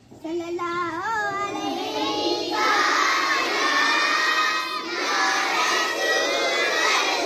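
A single boy's voice calls out a line, and from about two and a half seconds in a large group of young children chants loudly together in unison.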